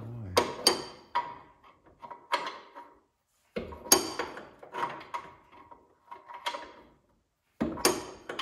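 A wrench working the oil drain plug loose on a 1978 John Deere 316 garden tractor: a run of sharp metallic clicks and clinks, a few a second, with short pauses about three seconds in and near the end.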